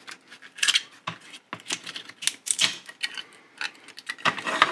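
Irregular plastic clicks and crackles as glued-in nickel-metal-hydride cells are pried out of an HP RAID controller battery pack's plastic case.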